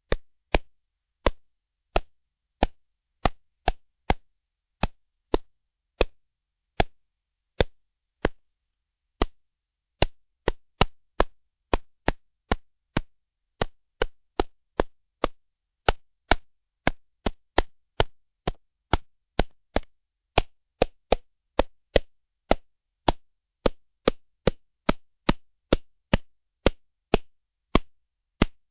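Punch impact sound effects: dozens of short, sharp hits in a row at an uneven pace, roughly one every half second to a second, with dead silence between them.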